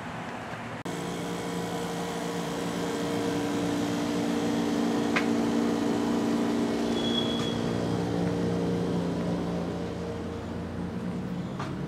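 Steady hum of a building's air-conditioning units, several fixed tones that grow louder through the middle and ease off near the end, with a single sharp click about five seconds in.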